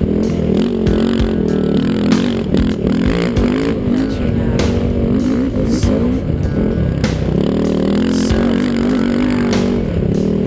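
Dirt bike engine revving up and down with the throttle, with scattered knocks and rattles from the bumps.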